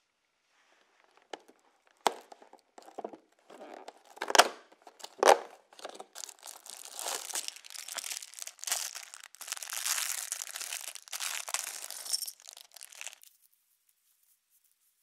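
A few sharp cardboard knocks and rustles as a small bag is pulled from an advent calendar compartment. Then a thin plastic polybag of LEGO parts crinkles and is torn open for about seven seconds, stopping abruptly near the end.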